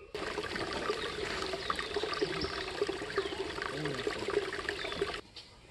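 Shallow forest stream trickling over rocks, steady, then cutting off suddenly near the end.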